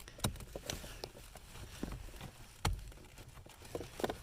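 Hands working behind a car dashboard, handling wiring and plastic while fitting a three-pin turn-signal flasher relay into its socket: scattered light clicks and knocks, the loudest about two and a half seconds in.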